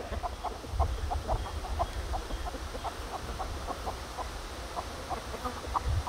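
Chickens clucking in short, scattered notes, about two or three a second.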